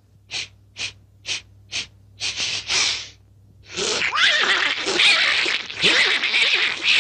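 A cartoon bear sniffing at close range: four short, sharp sniffs about half a second apart, then a few longer sniffs. After a brief pause it turns to a few seconds of continuous heavy snuffling and breathing.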